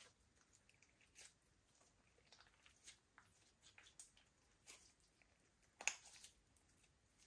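Slime being squished and worked by hand, making faint sticky clicks and crackles, with one sharper pop about six seconds in.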